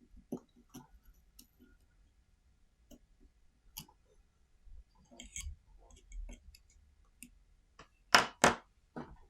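Small scattered clicks and scrapes of an X-Acto knife working around a sticker on the bottom of a plastic tripod mount, with two sharp, louder clicks in quick succession near the end.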